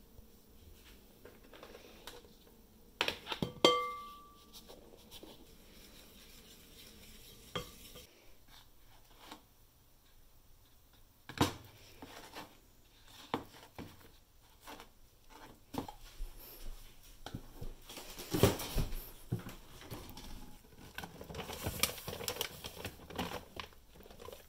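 Kitchen handling sounds of bowls and utensils while mixing and kneading cookie dough: scattered knocks and clinks. One sharp clink about three and a half seconds in rings briefly, and there is a busier stretch of handling noise near the end.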